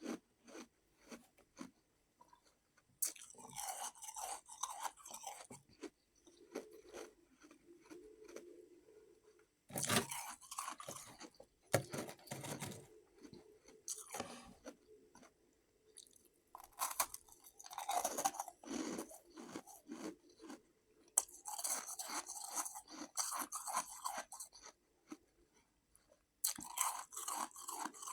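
Ice being bitten and chewed close to the microphone: crisp crunching in spells of a few seconds, with short quieter pauses between them.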